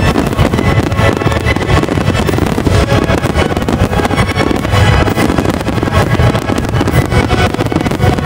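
A fireworks barrage: many aerial shells bursting in close succession, one blast running into the next without a break, with music playing along.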